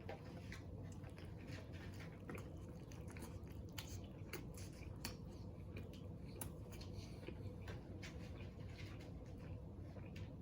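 A person biting into and chewing a fried chicken sandwich, with small irregular crunches and wet mouth clicks over a low steady hum.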